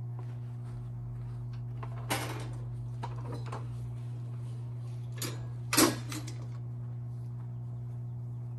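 A few knocks and clatters, the loudest about six seconds in, over a steady low hum.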